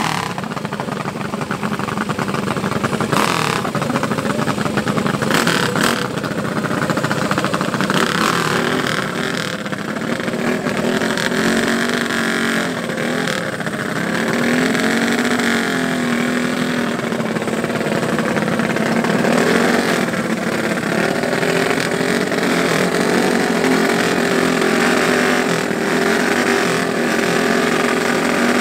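Mini bike racing engines running at the start line, revved up and down.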